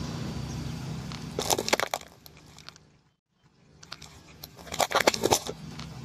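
Car tyre rolling onto a cardboard gift box and crushing it: a quick burst of crackling and crunching about one and a half seconds in, and a second, louder one about five seconds in, with a brief hush between. A low car engine hum runs underneath at the start.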